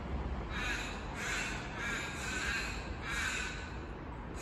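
A bird giving a run of about five harsh, repeated calls, over a steady low background rumble.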